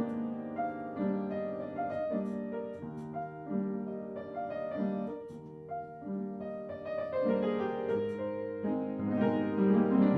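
Background music: piano playing a slow melody with sustained chords.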